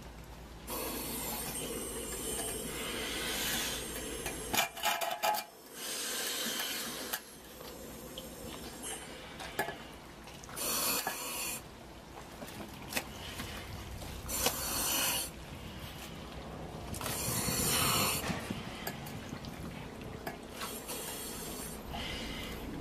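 Thick slurry sloshing and squelching around a person in a waterproof suit who is moving and sinking in it, with the suit's fabric rubbing. The sound comes in uneven surges of a second or so.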